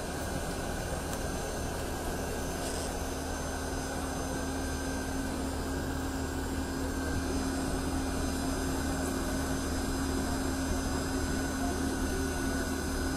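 Jet aircraft turbine running steadily on the apron: a constant hum with one low tone and a faint high whine over a low rumble, swelling slightly about halfway through.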